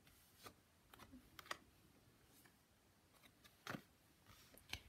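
Mostly near silence with a handful of faint, sharp taps and flicks of tarot cards being drawn and laid down; the two loudest come near the end.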